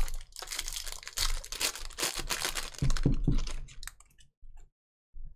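A trading card pack's wrapper crinkling and tearing as the pack is ripped open, with cards being handled. It is an irregular, crackly rustle that stops a little after four seconds in.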